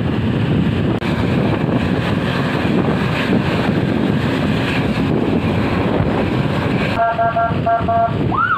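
Traffic and road noise with wind buffeting the microphone. About seven seconds in, a vehicle horn sounds two short blasts, and just before the end a siren starts wailing quickly up and down.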